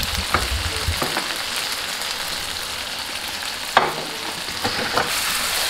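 Chicken and onions sizzling steadily in rendered sheep tail fat in a wide pan on a gas burner, nearly cooked through. A few sharp clicks and knocks sound over the sizzle, the loudest a little under four seconds in.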